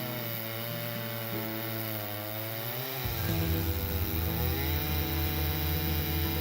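Stihl MS 881 chainsaw's big two-stroke engine running while cutting a large trunk, its pitch sagging under load and then climbing back. Background music with low bass notes comes in more strongly about three seconds in.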